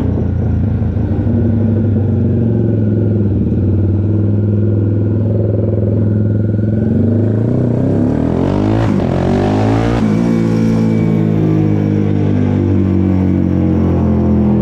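Honda CBX 250 Twister's single-cylinder four-stroke engine, bored out to 79 mm and fitted with a tuned exhaust, idling loudly. About eight seconds in it is revved once, the pitch rising over about two seconds before dropping quickly back to idle.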